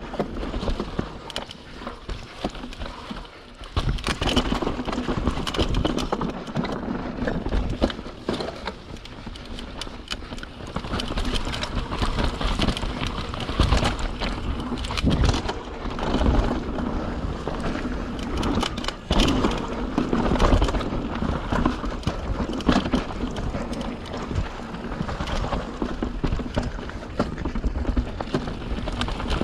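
YT Capra 29 mountain bike descending a rough dirt trail: tyre noise over dirt and rock with frequent rattles and knocks from the bike, rising and falling with the terrain.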